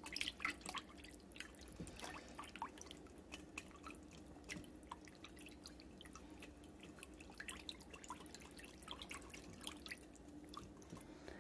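Wire whisk stirring an egg into a thin batter in a stainless steel bowl: faint, irregular wet clicks and splashes as the whisk knocks against the bowl and slops through the liquid.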